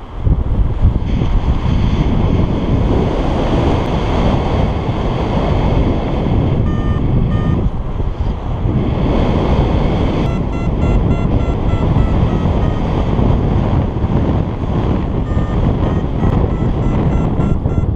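Wind rushing over the camera microphone in paraglider flight. A variometer beeps in quick short pulses, briefly about seven seconds in and then steadily from about ten seconds on, signalling that the glider is climbing in lift.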